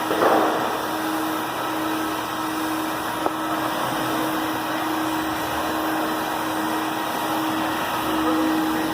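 Ruwac 211H HEPA industrial vacuum running steadily, a whooshing airflow with a steady hum, drawing off the dust from drywall sanders. A brief louder burst comes just after the start, and a single sharp click about a third of the way through.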